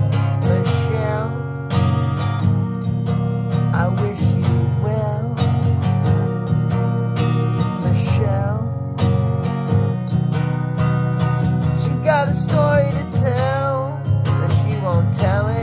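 Acoustic guitar strummed steadily in an improvised song, with a voice gliding and wavering over it at times without clear words.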